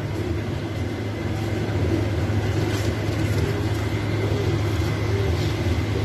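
Steady low rumble with a faint constant high whine.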